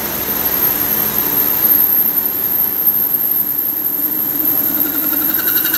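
Traub-type automatic lathe running as it cuts pipe under a flood of coolant: a steady mechanical drone and hiss, with a higher whine coming in near the end.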